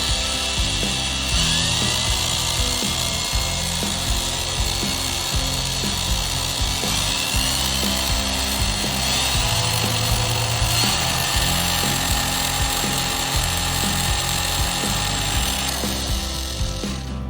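Parkside PWSA 20-Li B3 cordless angle grinder running and grinding, a steady whine whose pitch climbs and then holds several times. Background music plays with it.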